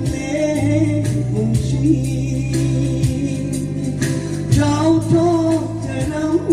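Music with singing over a steady beat and bass, in the style of a gospel song.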